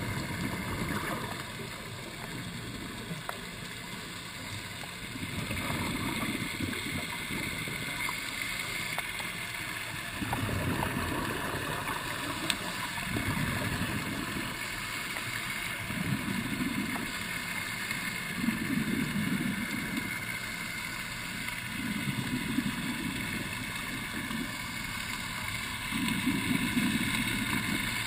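Scuba diver's regulator breathing underwater: exhaled bubbles rumble out in a swell every few seconds over a steady hiss.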